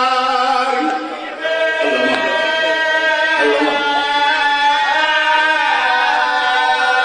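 A man chanting a sung, melodic religious recitation, a zakir's majlis delivery, drawing out long held notes that waver slowly in pitch, with a short break about a second in.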